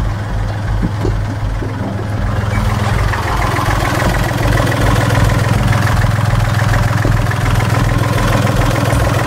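A sailboat's inboard diesel engine idling steadily with an even low throb, freshly restarted after new filters, coolant, impeller and a cleaned heat exchanger. About three seconds in it grows louder as it is heard up close at the open engine compartment.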